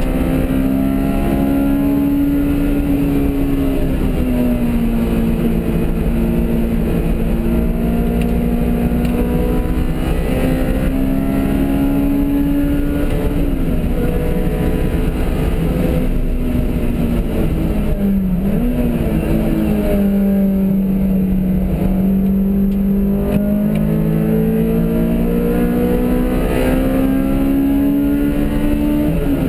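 Car engine at track speed, heard from inside the cabin over road and wind noise; the engine note slowly rises and falls through the corners, with two quick breaks in pitch a little before and after the middle.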